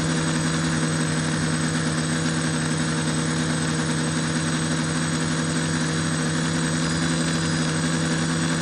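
TBS Discovery quadcopter's electric motors and propellers running at a steady drone in flight, heard from its onboard camera, with a constant pitch and a wide hiss of prop wash and wind.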